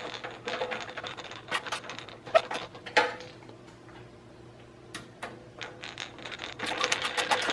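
A screwdriver turning a screw into a graphics card's metal mounting bracket on a PC case: irregular small metallic clicks and scrapes, busiest near the end.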